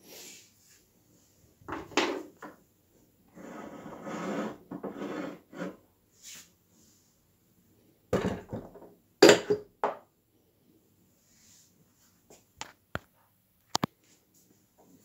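Intermittent workshop handling sounds: a few sharp knocks, a spell of rubbing and scraping about four seconds in, and short clicks near the end.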